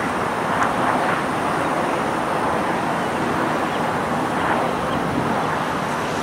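Steady background noise of road traffic.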